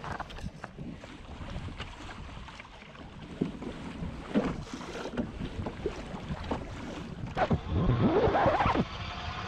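Wind buffeting the microphone over water lapping at a kayak's hull, with scattered knocks and clicks of fishing gear being handled. Near the end comes a louder stretch of rattling as lures are handled in an open plastic tackle box.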